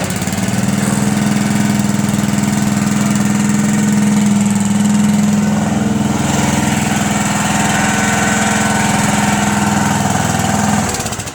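Gasoline engine of a Roscoe 1-ton roller running steadily while the roller drives on its new hydraulic drive pump, with a slight change in tone about six seconds in. The sound falls away near the end.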